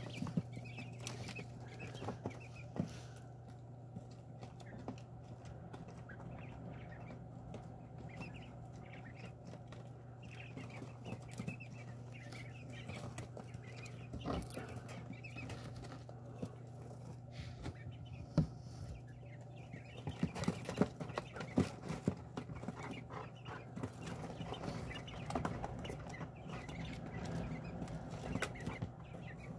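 Quail softly chirping and clucking, with sharp taps and scratches as they peck and shuffle in wood shavings around their feeder. The taps grow busier about two-thirds of the way in. A steady low hum runs underneath.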